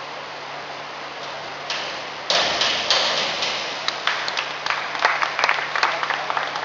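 A diver's entry splash into the pool about two seconds in, followed by scattered clapping, over a steady hiss in a large echoing hall.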